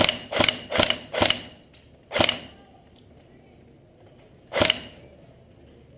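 Airsoft gun firing shots in quick succession, about two and a half a second, four of them in the first second and a half, then two single shots about two seconds apart.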